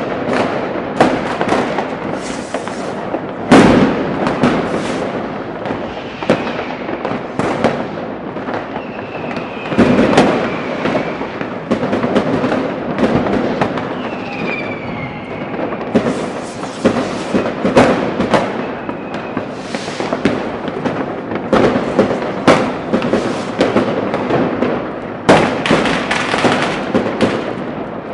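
Dense New Year's Eve fireworks and firecrackers going off without a break across a city: a constant crackle of bangs, with big booms about three seconds in, around ten seconds and near the end. A few whistling tones glide through, one falling about halfway.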